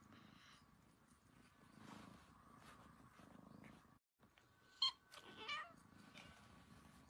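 Kitten mewing twice about five seconds in: a short high squeak, then a longer mew, over a faint background.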